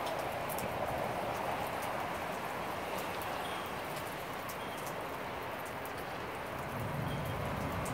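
Steady monsoon rain falling, an even hiss with scattered small ticks of drops striking nearby surfaces.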